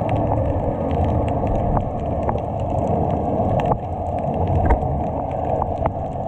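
Muffled underwater sound picked up by a camera held below the surface: a steady rushing rumble with many scattered sharp clicks and crackles.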